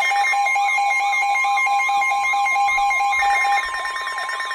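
Layered electronic alert tones between two warning messages. A steady high tone sounds under rapid pulsed beeping at two pitches and a repeating rising-and-falling wail. The beeping stops about three and a half seconds in, leaving the steady tone and the wail.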